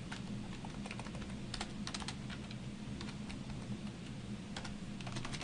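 Computer keyboard keys clicking in scattered clusters of keystrokes, over a faint steady low hum.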